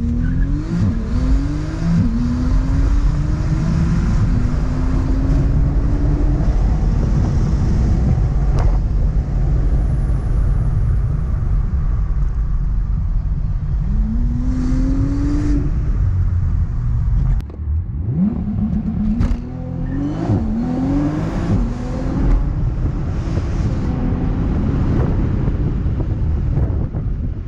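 ECU-tuned Bentley Continental GTC's 6.0-litre W12 engine accelerating hard, its pitch climbing in short runs and dropping back as it goes up through the gears, several in quick succession near the start and again about two-thirds in. A steady low rumble runs underneath.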